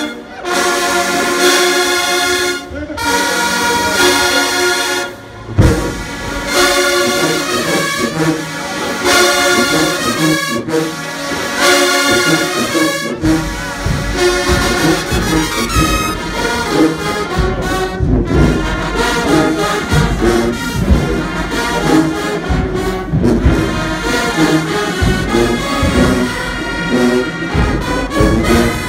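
Marching band brass playing loud, with sousaphones, trombones and trumpets. The first few seconds are held chords with short breaks, then a loud hit about five and a half seconds in. Drums and bass come in, growing heavier from about halfway.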